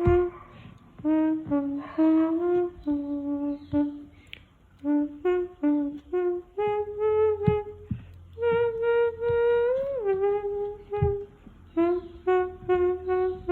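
A person imitating a trumpet with the mouth, playing a tune in short, separate notes. About eight and a half seconds in, one note is held for over a second, then bends up and slides down before the short notes resume.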